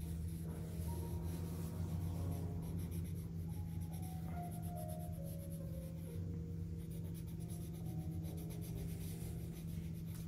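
Pencil scratching on sketchbook paper in many quick, repeated strokes as a portrait face is shaded, over a steady low hum and faint sustained tones.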